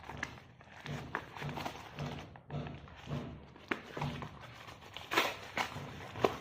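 Faint background music with a steady beat, with a few light clicks and knocks from handling, the loudest near the end.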